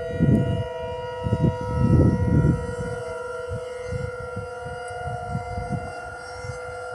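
Several distant outdoor warning sirens sounding at once, each holding a steady tone at its own pitch. Irregular low rumbling lies underneath, strongest in the first two and a half seconds.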